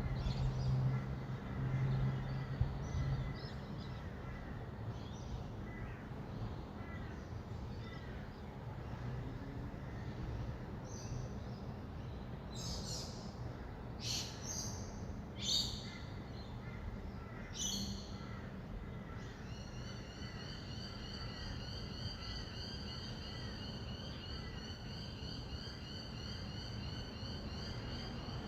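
Rainbow lorikeets giving several short, harsh screeches about halfway through, over a steady low hum of distant city traffic. From about two-thirds of the way in, a bird keeps up a rapid, evenly repeated high call.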